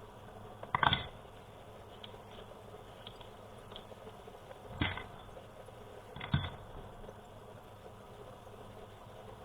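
Three sharp clicks or knocks, about a second in, near the middle and a little after, with faint small ticks between: hand tools and keyboard parts being handled while a keyboard switch is replaced.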